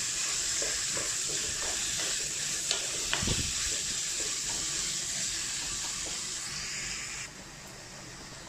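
Sliced onions sizzling in hot oil in a kadai while being stirred with a wooden spatula, with a couple of spatula knocks against the pan about three seconds in. The sizzle turns quieter about seven seconds in.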